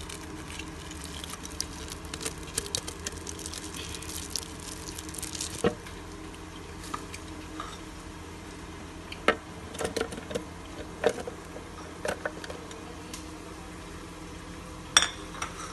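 Thick yogurt spooned into a blender jar with soft wet squelching, then onion pieces and green chillies dropped in, with scattered knocks against the jar. A steady low hum runs underneath.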